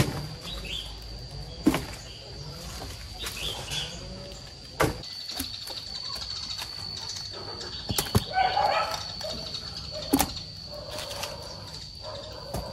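Farmyard animal calls and bird chirps, with sharp knocks every two or three seconds over a steady high-pitched whine.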